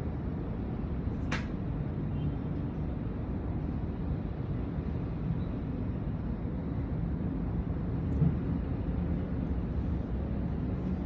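Steady low city background rumble. There is one short sharp click a little over a second in and a faint tick about eight seconds in.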